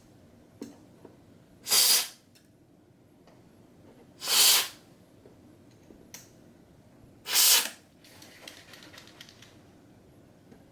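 Aerosol can of quick-drying contact cleaner sprayed in three short hissing bursts into a stereo receiver's contacts, with a few light clicks between them and a faint crackle near the end. The spray is cleaning the contacts to clear a sticking contact.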